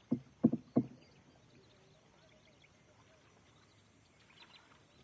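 About four dull thumps in quick succession within the first second, then quiet with a few faint, high bird chirps near the end.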